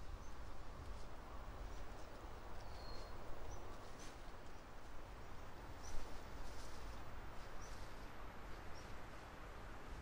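Woodland ambience: small birds give scattered short, high chirps, with one brief whistle about three seconds in, over a steady low rumble and hiss. A few soft clicks come through, the loudest about six seconds in.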